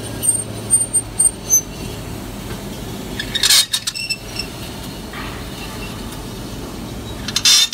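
C-purlin roll forming machine running: a steady mechanical hum with light metallic clinks early on, and two short loud bursts of noise, about three and a half seconds in and near the end.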